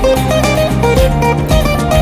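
Background music: a melody of short stepping notes over sustained bass notes.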